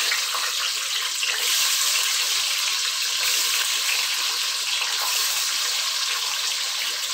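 Small whole onions (shallots) sizzling steadily in hot sesame oil in a clay pot, just after being dropped in.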